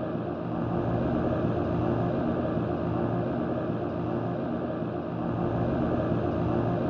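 Steady electronic drone: sustained low tones layered over hiss, with small falling glides recurring about once a second.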